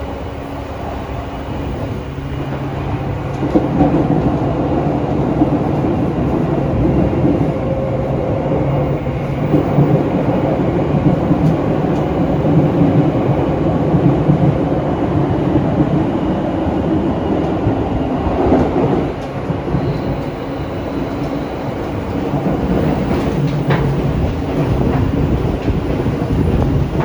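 Cabin noise of a Seibu New 2000 series electric train under way: the field-chopper-controlled DC compound traction motors hum steadily over the rumble of the wheels on the rails. The hum grows louder about three seconds in and eases a little later on.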